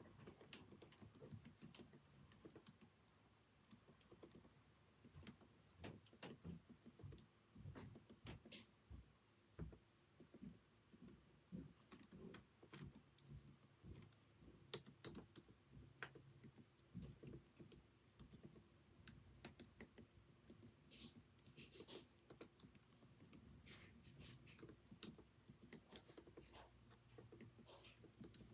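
Faint typing on a computer keyboard: quick, irregular key clicks in runs, some strokes sharper than others.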